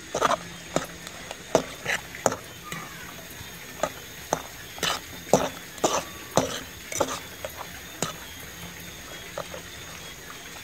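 A metal spoon stirring and scraping in a metal pot of fish in coconut-milk sauce, making irregular clinks and scrapes about every half second.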